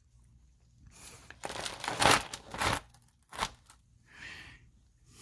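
Several irregular bursts of rustling and crinkling, loudest about two seconds in.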